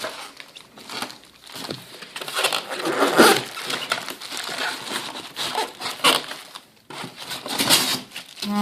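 Packaging rustling and crinkling in irregular bursts as parts are handled and taken out of a box, with scattered light clicks and knocks. A steady humming tone begins right at the end.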